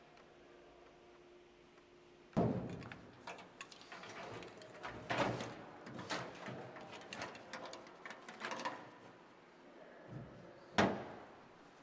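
Sheet-metal locker door banging open, then the clatter and rustle of things being handled inside the locker, then the door knocked shut with the loudest bang near the end.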